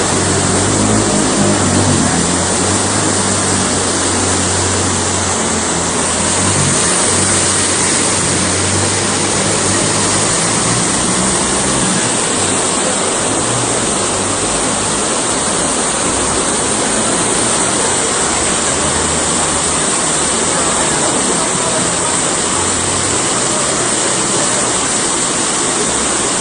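Steady rushing noise of floodwater and heavy rain. A low, steady hum sits underneath in the first half and returns briefly near the end.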